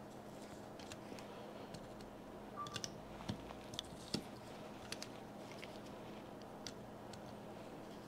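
Faint, scattered clicks and small scrapes of needle-nose pliers working the stuck metal drag piece inside a Penn Fierce live liner knob clamped in locking pliers, as the piece is slowly unscrewed. Most of the clicks fall between about two and five seconds in, over a faint steady hum.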